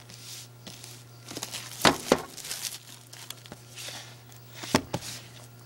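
Hands handling a cardboard collector's box and DVD cases: rustling and sliding, with a few sharp clicks and knocks, two about two seconds in and two more near the end.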